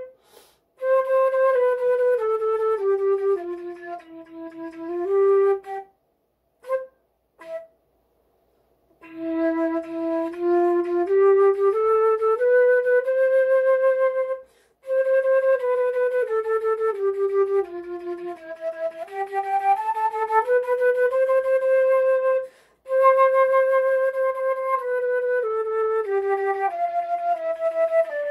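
Flute playing a slow melody in the lower part of its range, one note at a time in phrases with short breaks between them. About a third of the way in, the playing stops for roughly three seconds.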